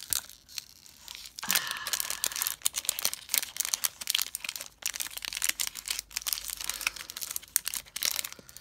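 Paper sticker-flake packaging being torn and crinkled open by hand: rapid crackling and rustling throughout, with a louder tear about a second and a half in.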